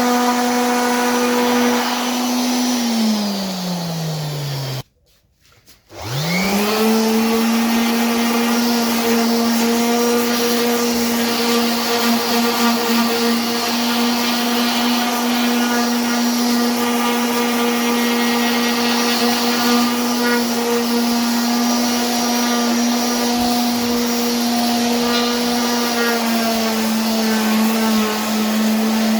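Electric power tool motor running steadily, then switched off and winding down, falling quiet for about a second, then switched on again about six seconds in, spinning up quickly and running on with a steady hum that dips slightly in pitch near the end.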